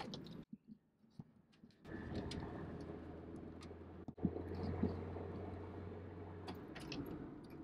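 Mazda 626 engine and road noise heard inside the cabin while driving at about 30 mph. A low engine drone comes in about two seconds in after a moment of silence, grows stronger in the middle and eases off near the end. A single click comes about four seconds in.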